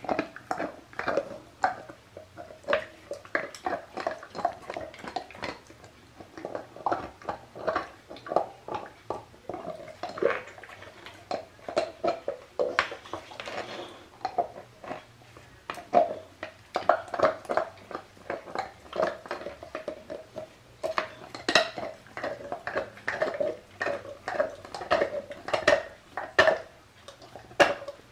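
Young boxer dog gnawing a hard chew: teeth clicking, knocking and scraping on it in rapid, irregular bursts of several strokes a second.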